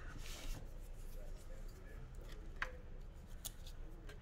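Paper being handled and rustled, with two sharp clicks, one about two and a half seconds in and one about a second later.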